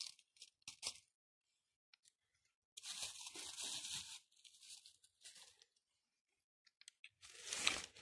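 Crunching and tearing of fresh mushrooms being picked and handled by hand, in short rustling bursts, the longest about three seconds in and another near the end.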